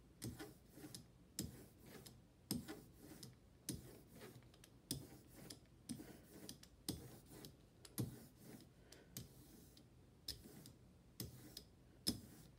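4-inch ink roller (brayer) rolled back and forth over an inked high impact polystyrene engraving block, giving a faint click about once a second with each stroke.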